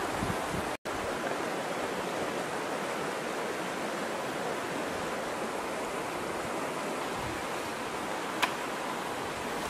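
Steady rush of flowing river water. The sound drops out for an instant about a second in, and a single sharp click sounds near the end.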